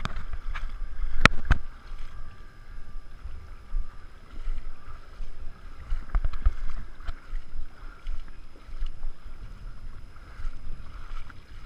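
Shallow lake water sloshing and splashing as someone wades through it holding a camera low, with wind rumbling on the microphone. Two sharp knocks come about a second in.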